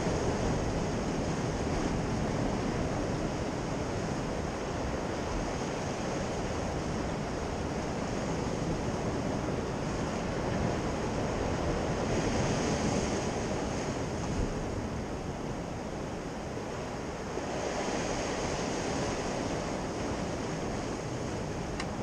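Sea surf washing and breaking against coastal rocks, a steady rush that swells louder twice, about halfway through and again a few seconds later.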